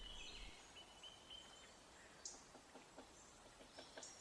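Near silence: faint outdoor ambience with a few soft, distant bird chirps and some light ticks.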